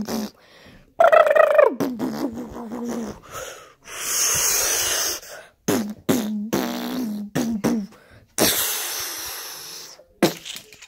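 A child making battle sound effects with his mouth, imitating blasters and explosions. There is a falling whoosh about a second in, then buzzing shots, and long hissing blasts around the middle and near the end.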